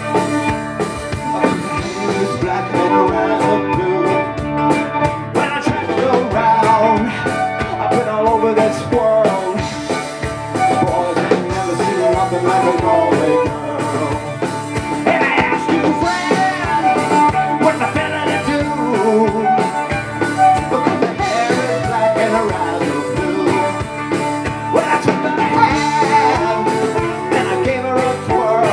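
A live band playing a song: acoustic guitar, a second guitar, fiddle and drum kit together, loud and steady throughout.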